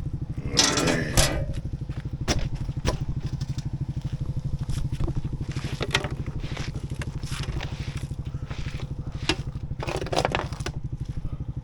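Quad (ATV) engine running with an even, steady pulse while it tows a stone-weighted wooden pallet over loose soil. Crunches and scrapes from the dragged pallet come and go, loudest about a second in and again near the end.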